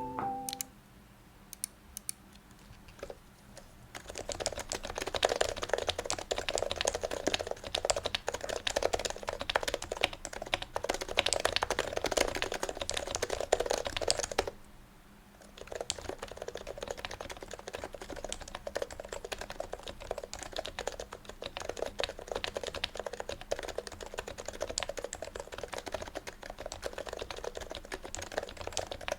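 Sho Snipe keyboard with aged HHKB Pro 2 Topre rubber domes, aluminium plate, OEM sliders and silencing rings, typed on. After a few single key presses it is typed fast for about ten seconds, then after a short pause typed at a normal pace.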